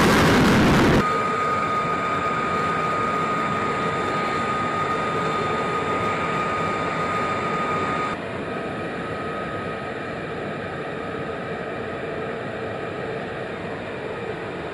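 F-35A Lightning II's F135 turbofan jet engine running at taxi power: a steady high whine over a broad rushing noise. A louder jet roar in the first second drops off abruptly, and the sound steps down again about eight seconds in.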